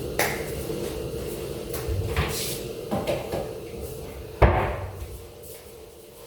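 A few knocks and clatters of household things being handled and set down, the loudest about four and a half seconds in, over a faint steady hum.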